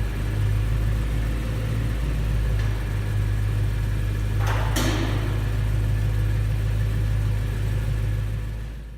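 BMW E92 M3's V8 engine running at idle, a steady low rumble, with a brief rising sweep about four and a half seconds in; the sound fades out near the end.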